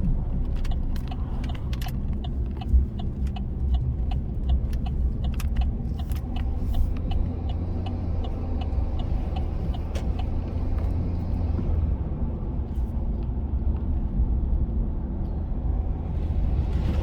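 3.0 Duramax inline-six turbodiesel pickup driving, heard from inside the cab with a window cracked: a steady low rumble of engine and road noise. A regular light ticking, about three a second, runs through the first twelve seconds or so.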